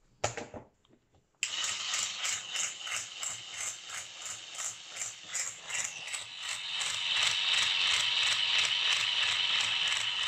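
Toy electric drill running with its bit pressed against a wooden spoon: a rattling whir that starts about a second and a half in, pulses at first, and settles into a steadier, slightly louder run from about six seconds.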